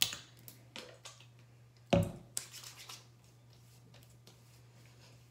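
Clicks and knocks of a plastic toner bottle being handled and opened, with a heavier thud about two seconds in, then only faint room tone.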